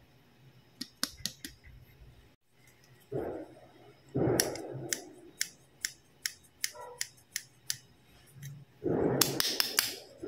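Blue plastic toy scissors from a children's doctor play set being opened and snapped shut, giving sharp plastic clicks: a few about a second in, then a steady run of roughly three a second, then a loud cluster near the end. Between the clicks come louder patches of rustling plastic handling noise.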